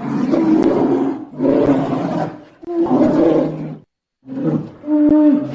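Polar bear vocalizing: a series of about four rough, deep calls, each around a second long, with short gaps between.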